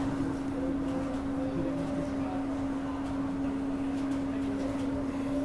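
A steady, unbroken humming tone over an even background hiss, with a few faint higher tones coming and going.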